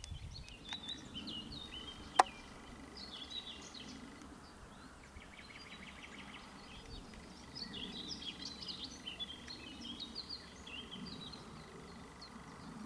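Small birds chirping and twittering, a scatter of short high calls that are busiest about three seconds in and again for a few seconds after the middle, over faint low background noise. A single sharp click sounds about two seconds in.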